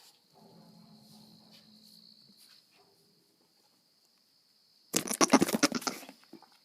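A goat making a faint, low, drawn-out grumble, then about a second of loud, rapid rasping near the end.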